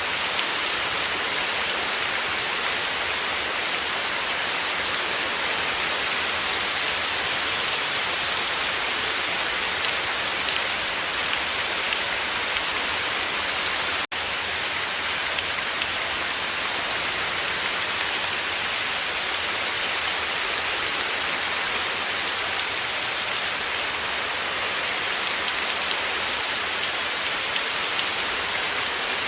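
Heavy rain falling in a steady, dense hiss. It drops out for an instant about halfway through.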